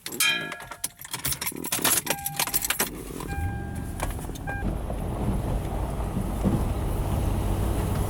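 Keys jangling and clinking, then about three seconds in an off-road vehicle's engine starts and idles steadily.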